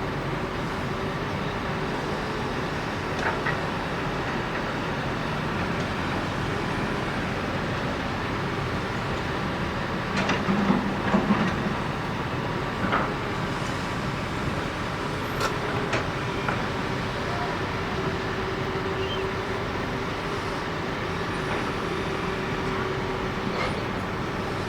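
Large hydraulic excavator's diesel engine running steadily under work, with a faint steady whine and a few sharp metallic clanks, the loudest about ten to twelve seconds in.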